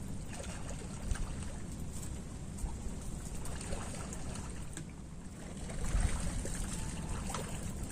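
Wind rumbling on the microphone over open water, with a few faint small clicks.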